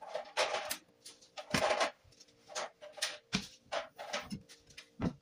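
Irregular knocks, taps and scrapes of kitchen prep on a plastic cutting board as a glass bowl of sliced bitter gourd is moved into place, with one longer scrape about a second and a half in.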